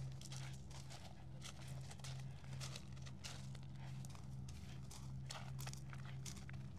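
Footsteps of a person walking, about two short crisp steps a second, over a steady low hum.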